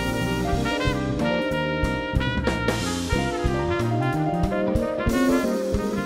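Live band playing, led by a trumpet carrying the melody over drum kit and bass.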